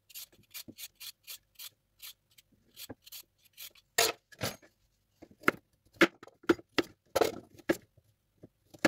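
Crinkle-cut knife chopping through a carrot onto a cutting board: a run of quick, light chops, then louder chops about twice a second from about four seconds in.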